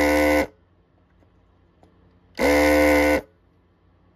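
Hakko desoldering gun's vacuum pump running in two short bursts as it sucks molten solder off the display's pins: one burst cuts off about half a second in, and another of under a second starts about two and a half seconds in.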